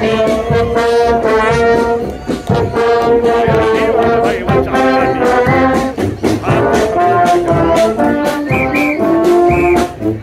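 Marching brass band playing a tune: trombones and tubas hold sustained notes over a steady beat of snare drum strokes.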